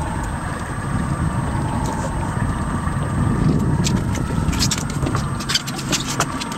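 Boat engine idling with a steady low rumble, joined by a scatter of short clicks and knocks about four to six seconds in.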